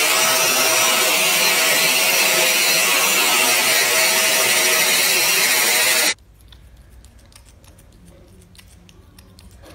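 Handheld hair dryer blowing on a wet cat's fur, a loud steady rush of air that cuts off suddenly about six seconds in. After it, faint small clicks of the cat licking paste from a tube.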